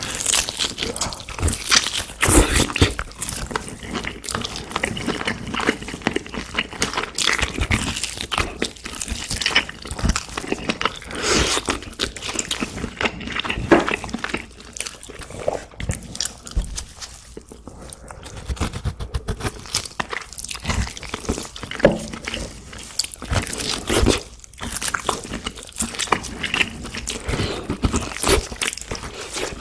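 Close-miked eating: a person biting and chewing braised pork back ribs coated in kimchi-stew sauce, with many small wet clicks from the mouth and the sticky meat.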